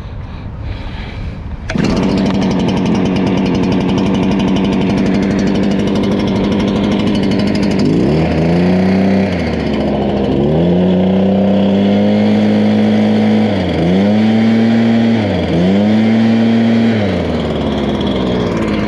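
Gas backpack leaf blower engine starting abruptly about two seconds in, then running loud and steady at high speed. From about eight seconds in the engine speed dips and comes back up several times.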